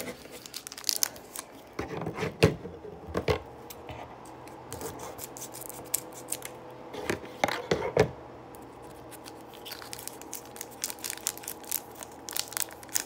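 Scissors snipping through the crinkly foil wrapper of a Pokémon booster pack, with irregular crackling of the wrapper as it is handled and pulled open; the loudest snips and crackles come in clusters a couple of seconds in and again about halfway through.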